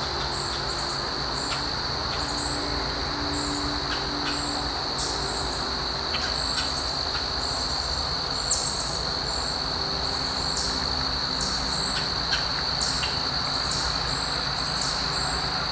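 A steady, high-pitched insect chorus of crickets with birds giving short, high, down-slurred chirps every second or so in the second half.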